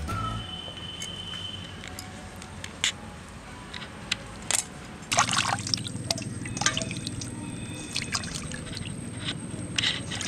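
Water splashing and dripping in a stainless steel bowl as whole and cut fish are washed by hand and lifted out, in short irregular splashes.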